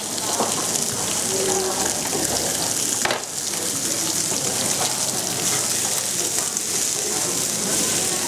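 Beef steaks sizzling steadily on a hot ridged grill pan over a portable gas burner. It is a continuous hiss with brief dips just at the start and about three seconds in.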